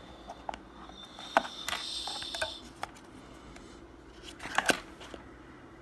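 A small cardboard product box handled in the fingers: scattered light taps and clicks, a scraping rustle lasting about a second from about one and a half seconds in, and a brief cluster of sharper knocks about four and a half seconds in.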